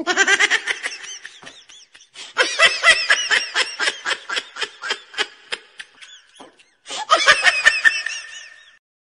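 High-pitched laughter, a comic laughter sound effect laid over the scene. It comes in three bouts of quick rhythmic 'ha-ha' pulses, with short breaks about a second and a half in and again near six seconds, and stops abruptly near the end.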